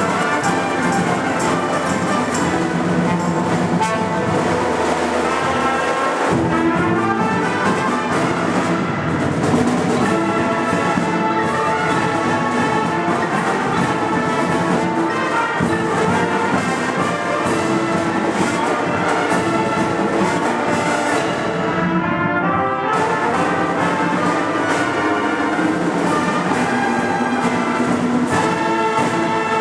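Marching band playing at full volume: trumpets and trombones carrying the melody over drum strikes. There is a brief drop in the high brass about three quarters of the way through.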